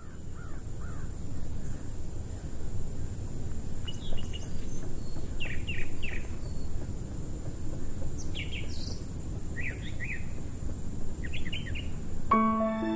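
Outdoor nature ambience: several birds giving short chirps and chips now and then, over a steady low rushing noise and a high, fast-pulsing buzz. Music comes in just before the end.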